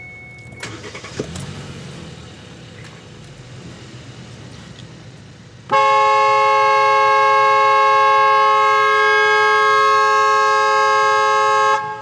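Kia cee'd car horn held down in one long, steady blast of about six seconds. It starts suddenly about halfway through and cuts off near the end.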